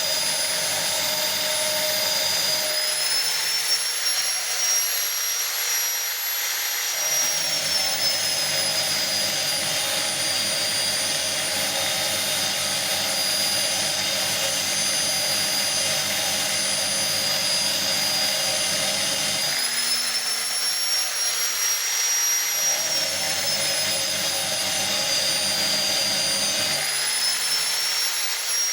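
Electric grinder sharpening the teeth of a circular saw blade: a continuous high-pitched motor whine over a rough grinding noise. Several times the grinding noise drops away for a few seconds and the whine rises slightly in pitch, then settles lower again once the grinding resumes.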